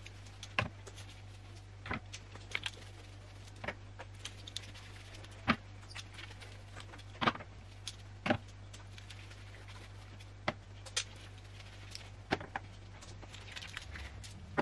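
Glass spice jars clinking and being set down one after another on a tiered shelf stand, giving scattered light knocks and clinks about every second or two.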